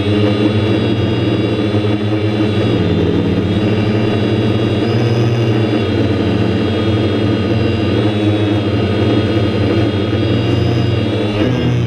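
DJI F550 hexacopter's six electric motors and propellers hovering close to the onboard microphone: a loud, steady multi-tone buzz. Near the end the pitch starts to waver up and down as the rotor speeds change.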